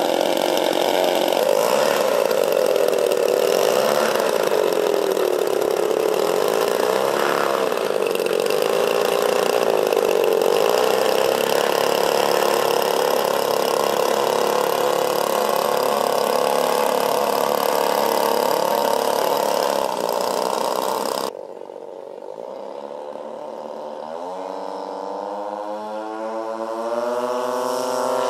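Propeller engines of a 1:8 scale Dash 8 radio-controlled model airliner running steadily on the ground, the pitch wavering slightly. About three quarters of the way through it turns quieter, then the engines spool up with a rising whine that grows louder for the take-off run.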